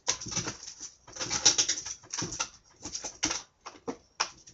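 Irregular rustling and clattering of trading cards and hard plastic card cases being handled, in a string of short bursts.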